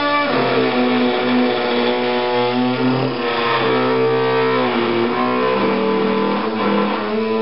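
Background music of held plucked-string notes that change pitch every second or two.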